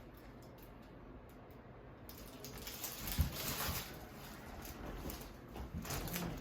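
Rustling and shuffling of bodies and clothing on a chiropractic treatment table, starting about two seconds in, with one sharp knock about three seconds in.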